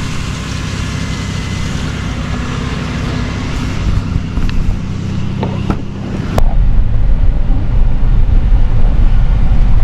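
Vehicle engine and road noise heard from inside the cab while driving, a steady low drone. A sharp click comes about six seconds in, after which the low rumble gets louder.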